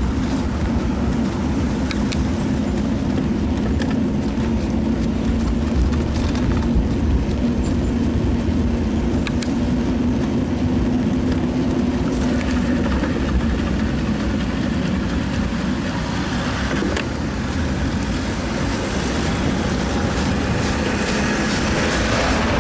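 Wind buffeting a Sony HDR-AS100V action camera's microphone while it moves along a street, with steady road rumble and passing car traffic, and a few light clicks.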